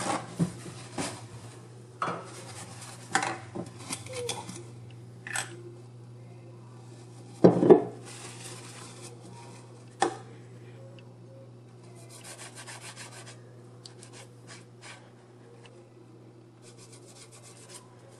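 A brush stroking sorghum liquor onto a slab of mullet roe: soft rubbing, scratchy strokes, among a few clicks and knocks of utensils against a dish, the loudest knock about seven and a half seconds in. A steady low hum runs underneath.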